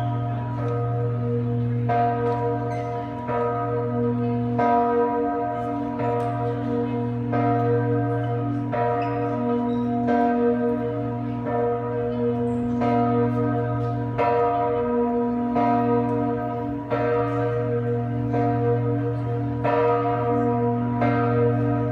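Church bells ringing, struck steadily about once every 1.3 seconds. A deep hum keeps sounding between the strokes.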